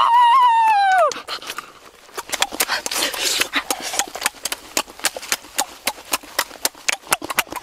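A child's high, drawn-out vocal sound that rises and falls for about the first second, then rapid wet smacking and clicking of eating roasted chicken.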